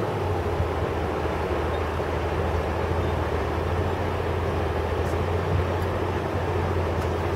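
Steady drone of a truck's engine and road noise heard from inside the cab while driving, with a low, even hum holding throughout.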